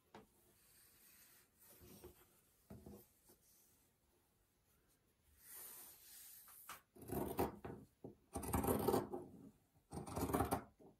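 Cotton gingham fabric rustling faintly as hands smooth it flat on a wooden tabletop. Then fabric scissors cut through the cloth in several loud strokes, each under a second long, in the second half.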